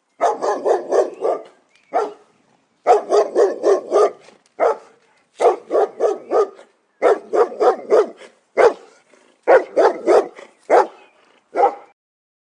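A dog barking in quick runs of about five barks, with short pauses and a few single barks between the runs.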